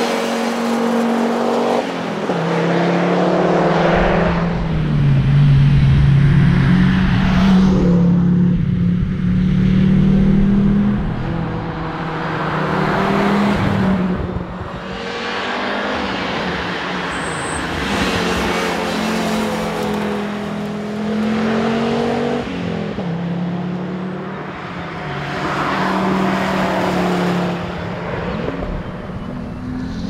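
Audi Quattro rally car's turbocharged five-cylinder engine at full effort on a tarmac stage, revving up and dropping back at each gear change over several fast passes.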